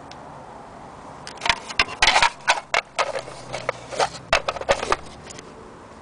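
Plastic sewing-machine accessory box being handled: an irregular run of clatters and knocks, metal bobbins and small parts rattling in the tray, starting about a second in and stopping about five seconds in.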